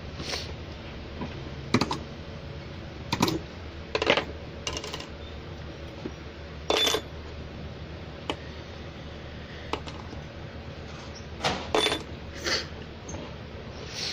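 Small metal parts of a vacuum brake booster clinking and clicking as they are handled and set down on a tiled floor: about eight scattered knocks, two of them with a short metallic ring. A low steady hum runs underneath.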